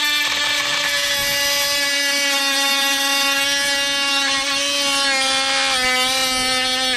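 Dewalt DCS356 brushless oscillating multi-tool running with its blade against a grade 5 steel bolt: a loud, steady, high-pitched buzz whose pitch dips slightly about six seconds in. The blade is making little headway, which the owner puts down to the blade possibly having been damaged on a grade 8 bolt.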